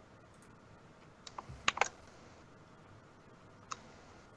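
A few faint clicks on a computer keyboard: a quick cluster about a second and a half in, and a single click near the end.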